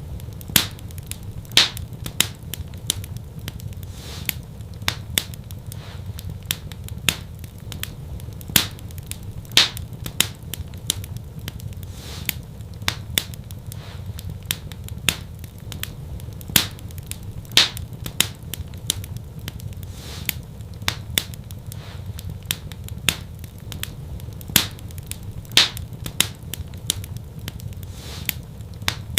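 Fireplace fire crackling: irregular sharp pops and snaps of varying strength, several a second, over a steady low rumble.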